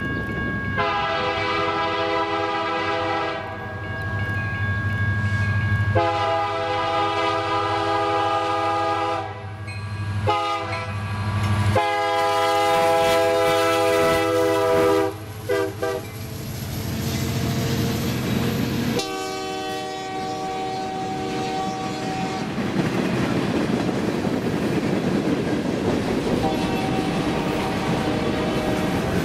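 Union Pacific diesel locomotives sounding a multi-note air horn in long, long, short, long blasts, the grade-crossing signal, and then another long blast, over the low rumble of the passing engines. After that the empty rail-tie flatcars roll by with steady wheel noise and clickety-clack over the rail joints.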